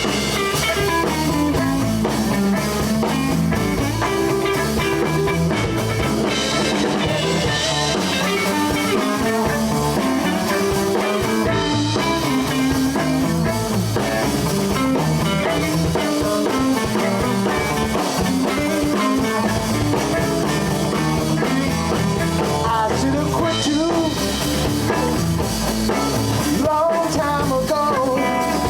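Live blues band playing an instrumental passage with electric guitars, drum kit, violin and bass guitar.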